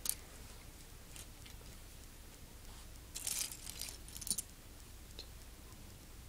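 Close handling noises: a short click, then about a second of rustling and clicking starting around three seconds in, which ends in a sharp click.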